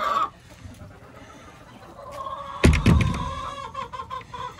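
Hens clucking, with a long drawn-out call through the second half. A heavy thump about two-thirds of the way in is the loudest sound.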